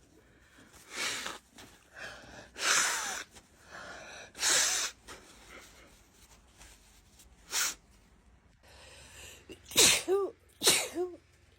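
A woman sneezing repeatedly in a fit: a string of sudden sneezes every second or two. The last two, near the end, are the loudest, with a voiced "choo".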